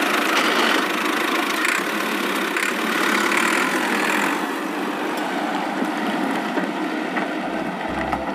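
A tractor engine running steadily at a constant pitch, used as the sound of a toy tractor pulling a trailer.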